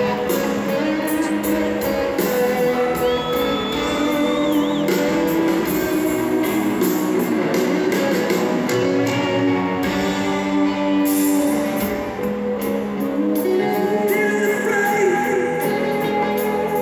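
Rock band playing live in an arena, with electric guitars, drums and the drummer singing the lead vocal, recorded from the crowd in a large reverberant hall.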